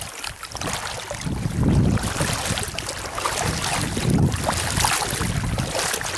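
River water lapping and rushing, with gusts of wind buffeting the microphone, swelling about two seconds and four seconds in.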